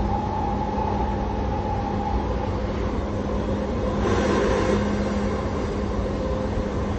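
Yamanote Line commuter train running, heard from inside the car: a steady rumble and rail noise with a high steady tone that fades out about two and a half seconds in. About four seconds in the noise grows louder and brighter.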